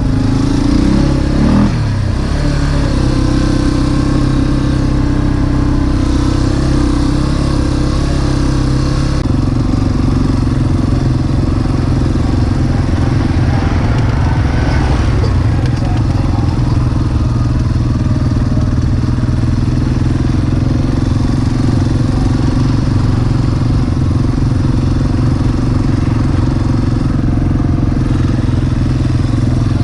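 ATV engine running at steady revs, with a brief rise and fall in pitch about a second or two in.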